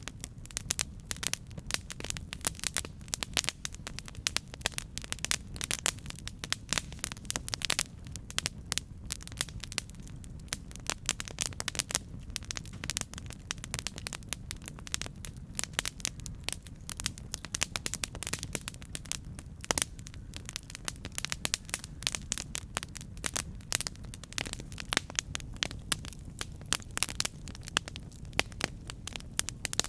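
Campfire burning: wood crackling and popping in many small irregular snaps over a low steady rumble of the flames.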